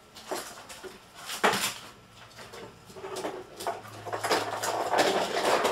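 Knocks and clatter of small objects being handled, one sharper knock about a second and a half in, then a denser run of rustling and clattering over the last couple of seconds.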